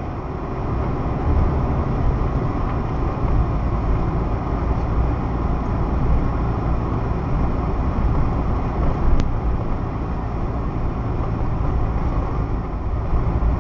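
A car driving along the road, heard from on board: a steady rumble of engine and tyres that grows a little louder about a second in, with a single faint click about nine seconds in.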